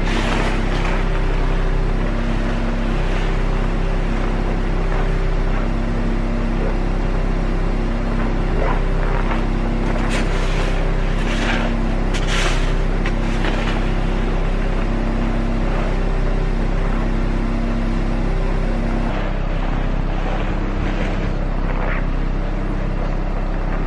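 Car engine idling steadily, warming up after a remote start in deep cold. Over it, a snow shovel scrapes and pushes through snow, several times around the middle and a couple more near the end.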